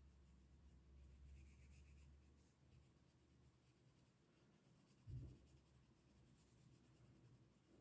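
Very faint scratching of a red oil pastel crayon rubbed back and forth on paper, colouring in. A soft low thump about five seconds in.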